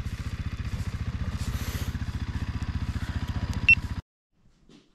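Fantic Supermoto 125 single-cylinder motorcycle engine idling with a steady, rapid even pulse, cutting off abruptly about four seconds in.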